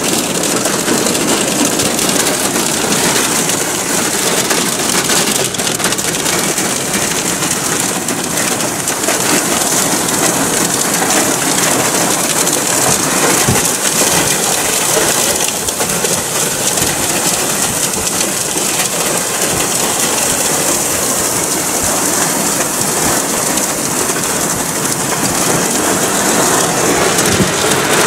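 Heavy wind-driven rain from a squall line pelting a car's windows and body, heard from inside the car as a dense, steady hiss.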